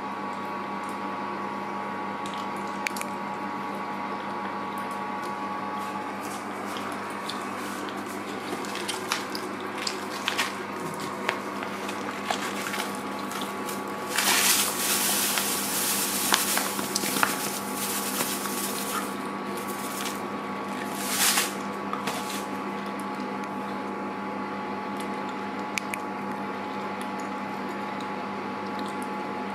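Granulated sugar poured from its paper bag onto sliced fruit in a steel pot: a loud hissing pour lasting about three seconds midway, then a shorter one a few seconds later. Scattered clicks and rustles of handling come before it, over a steady hum throughout.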